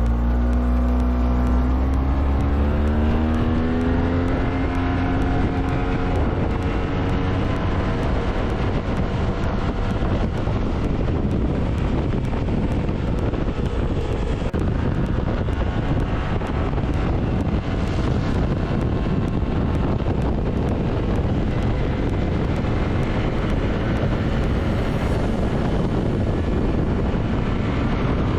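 Yamaha T-Max 530 scooter's parallel-twin engine pulling hard at full throttle from a standstill. Its note rises over the first few seconds, then holds at a fairly steady high pitch as the scooter keeps gaining speed, with wind rushing over the microphone.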